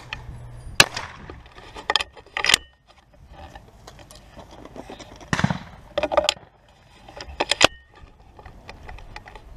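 Irregular sharp clicks, knocks and light rattles of handling and movement, in small clusters with a couple of louder snaps; no gunshot is heard.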